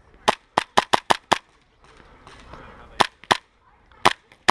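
Short-stroked Tokyo Marui Hi-Capa 5.1 gas blowback airsoft pistol firing sharp cracks: six quick shots in a burst, a pause, then two pairs of shots.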